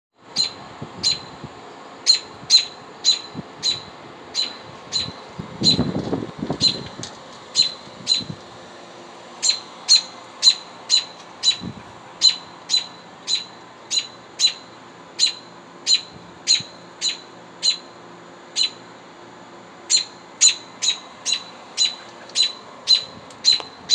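American robin giving sharp alarm calls over and over, about two a second with a few short pauses: the agitated call of a parent guarding its nest of chicks.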